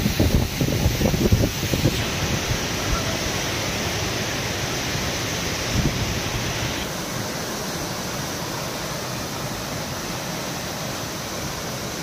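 Steady rushing of a waterfall, an even hiss of falling water, with a few low thumps in the first two seconds; the hiss turns a little duller about seven seconds in.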